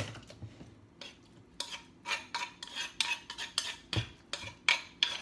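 A spoon scraping and knocking against a metal mixing bowl while working mashed fish dip out of it, in a run of short quick strokes that starts about a second and a half in, with a dull knock about four seconds in.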